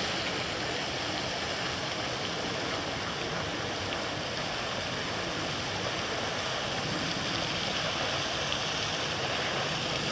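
Steady rushing hiss of splashing water, as from the lake's spray fountain, with no breaks or changes.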